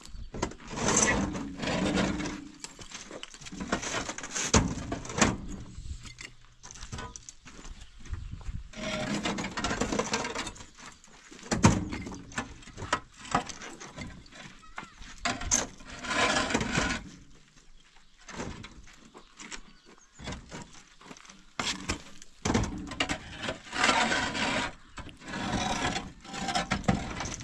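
Hollow concrete blocks clunking and scraping against one another as they are slid off a truck bed and set down on a stack, in irregular bursts with sharp knocks.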